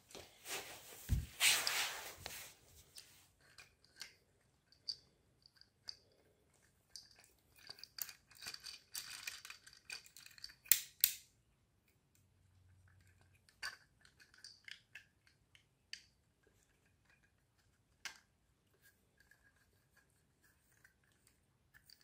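Small plastic clicks and rattles from a 3D-printed wind-up car being handled, in runs that are densest about halfway through. A burst of rustling comes near the start.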